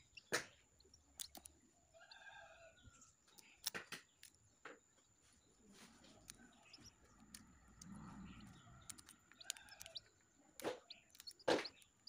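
Small dry clicks and crackles of eggshell being picked and peeled away by fingers from a hatching chick, scattered irregularly, with a few faint short chirps.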